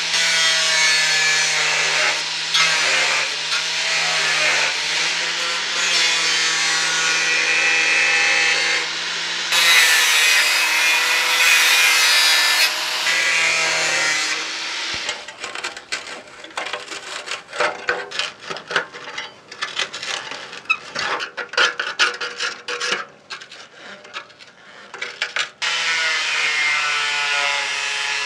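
DeWalt angle grinder with a cut-off disc cutting through rusted sheet steel, its motor whine dipping in pitch as the disc bites. About halfway through, the steady cutting gives way to about ten seconds of rough, uneven rasping. The steady whine returns near the end.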